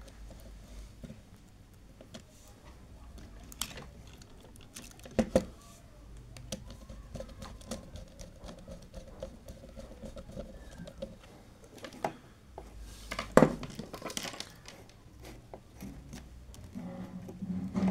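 Screwdriver turning terminal screws on a contactor, with wires being handled: scattered small clicks and scrapes, and a few louder knocks, the loudest about 13 seconds in.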